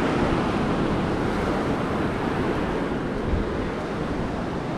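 Caribbean surf washing onto the beach in a steady wash of noise, with wind buffeting the microphone.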